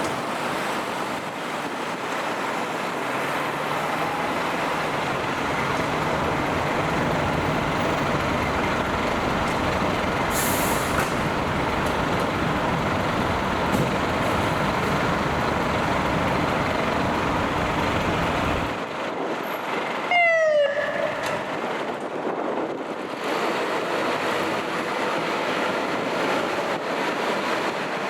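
Fire truck running past with steady engine and road noise; the deep rumble cuts off suddenly about two-thirds of the way in. A moment later comes one short, loud sound that falls in pitch.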